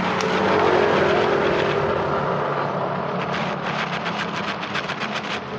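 Motor vehicle traffic passing on the road, engines running with a note that rises about half a second in. A run of quick, sharp clicks comes in the second half.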